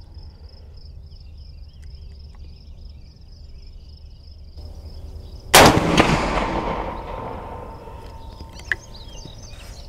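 A single rifle shot from a Marlin 336 lever-action in .30-30 Winchester firing a 170-grain load, about five and a half seconds in. The report dies away over about two seconds.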